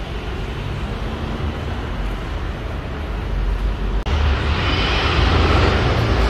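Outdoor city street noise: a steady rumble of traffic. An abrupt cut about four seconds in, after which it is louder and brighter.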